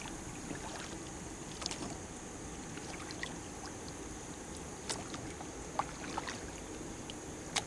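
Quiet, steady background of river water around a small boat, with a few faint, brief clicks and knocks.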